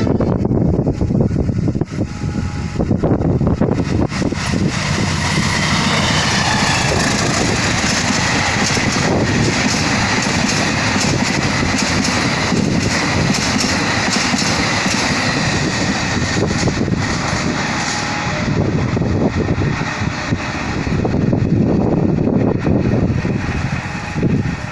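Passenger train running through a station: a loud, steady rumble of wheels on rail, with repeated clacks as the carriages pass over the track.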